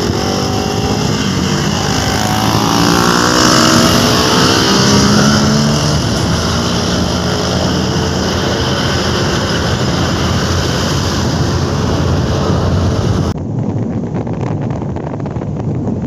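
Motorcycle on the move, its engine note rising and falling under loud wind rush on the microphone. The sound changes abruptly about thirteen seconds in.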